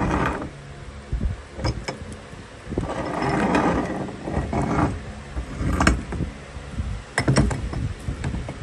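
Meat grinder working grapes through its mechanism, a steady low mechanical hum broken by irregular louder grinding stretches and sharp clicks.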